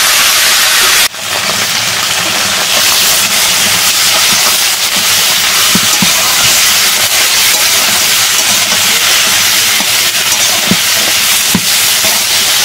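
Chopped brinjal, green tomatoes and green chillies sizzling loudly in hot oil in a steel karahi, stirred with a metal spatula that clicks against the pan now and then. The sizzle drops out for an instant about a second in, then carries on.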